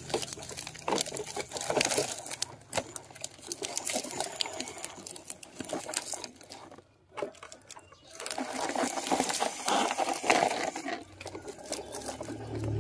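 Plastic toy trucks rolling and being dragged along a plastic-sheet track, their wheels crackling and clicking over grit. The crackling stops almost completely about seven seconds in, then starts again.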